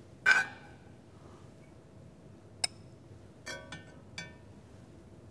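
Serving utensil clinking against a small cocotte dish while bulgur is spooned in: a ringing clink just after the start, a sharp tick in the middle, then a few lighter clinks about a second later.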